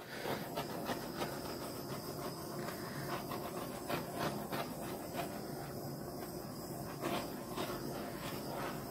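Handheld butane torch flame hissing steadily; it comes on right at the start and holds even throughout.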